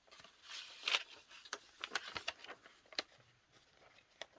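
Paper pages of a handmade junk journal being turned and handled: soft rustling swishes and crisp paper clicks, the loudest about a second in.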